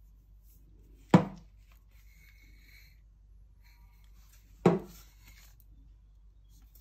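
Two sharp metallic clicks, about three and a half seconds apart, from the breech of a Reximex MITO S .177 PCP air rifle as its magazine is fitted and handled.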